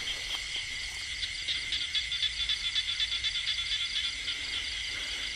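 A steady chorus of insects trilling, several high, rapidly pulsing tones layered together.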